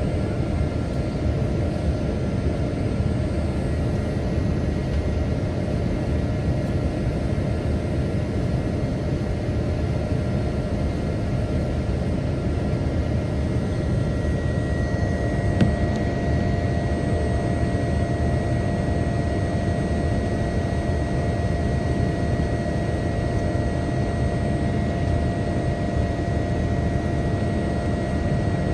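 Steady jet noise of a Boeing 787-10 airliner during its takeoff: an even rush with a few thin steady whines, a higher whine coming in about halfway through. A single short click sounds just after.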